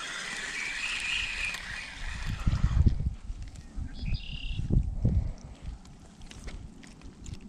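Spinning reel cranked to retrieve line, a steady gear whir for about the first three seconds. Then a few low thuds as a small fish is swung onto the bank.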